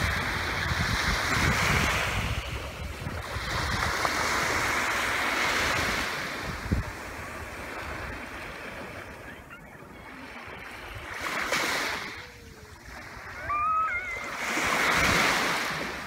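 Small sea waves washing onto a sandy beach. There are about four surges, each rising and falling over a couple of seconds, with a longer quiet lull in the middle. A few short high calls come near the end.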